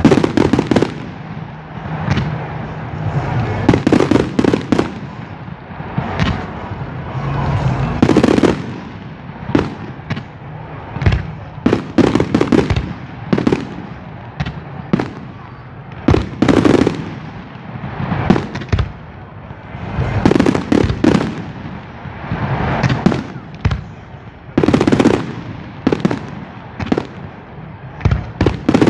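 Fireworks display: aerial shells bursting with sharp bangs, some single and some in rapid crackling runs, with the noise of a crowd of onlookers between them.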